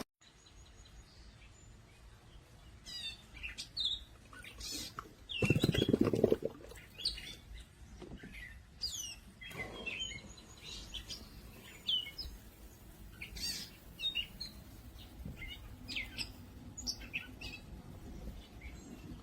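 Small birds chirping, short high notes repeated on and off. About five and a half seconds in there is a louder, low noise lasting about a second.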